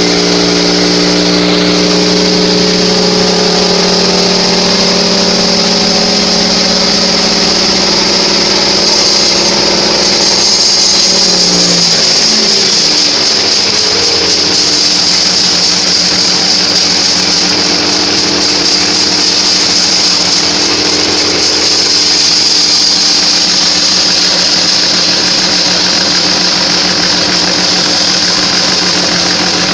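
Bandsaw sawmill running as it saws a trembesi (rain tree) log: a steady machine hum under a continuous high hiss. The hum's pitch sags and shifts about ten to twelve seconds in, then holds steady again.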